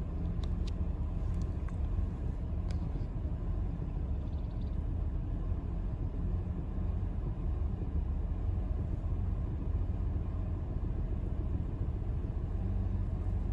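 2005 Lexus ES 330's 3.3-litre V6 idling steadily, a low even rumble.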